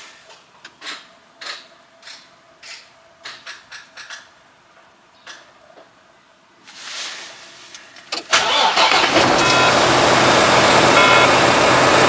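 Light, scattered knocks and clicks. Then, about eight seconds in, a semi truck's Volvo D13 inline-six diesel cranks and fires at once, running loud and steady. It starts right up even though the truck has been sitting for several days.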